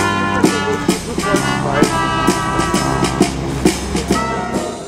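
A small brass band playing outdoors: held brass notes over a tuba bass line, with a drum keeping a steady beat of about two to three strokes a second. The music stops near the end.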